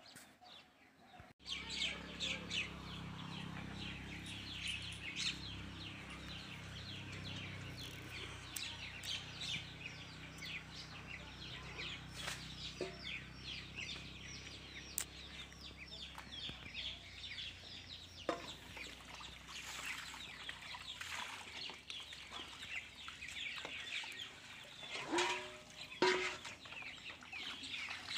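Birds chirping densely and rapidly, with clucking from fowl and a couple of louder calls near the end, starting abruptly about a second in over a low steady hum that fades after the first half.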